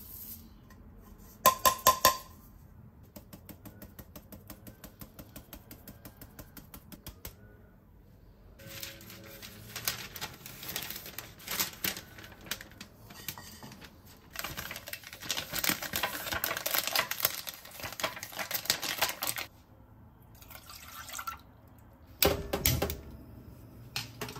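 Flour being sifted through a stainless fine-mesh sieve, with a fast, even tapping on the sieve for several seconds. This is followed by parchment paper rustling and crinkling as it is lifted and folded, loudest over a stretch of about five seconds. A few knocks come near the start and near the end.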